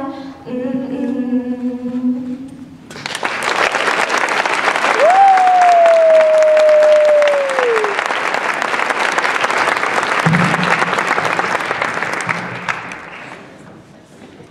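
Two girls' voices hold the duet's last sung note, then an audience breaks into applause about three seconds in. In the middle of the applause there is one long whistle that rises briefly and then slides down, and the clapping dies away near the end.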